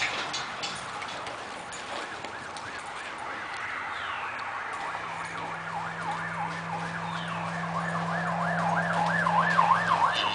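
A siren in a fast yelp, its pitch swinging up and down several times a second and growing louder toward the end. A steady low hum joins about halfway through.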